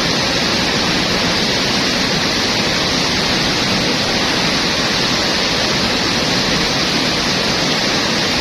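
Steady rush of a fast-flowing jungle river over rocks, an even unbroken noise.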